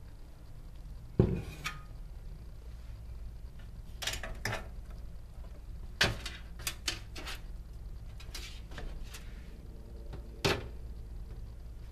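Sheet-metal parts of an nMedia 6000B HTPC case, its removable drive bay and steel chassis, being handled: a sharp metal knock about a second in, the loudest, then scattered clanks and clicks around four, six and ten and a half seconds in.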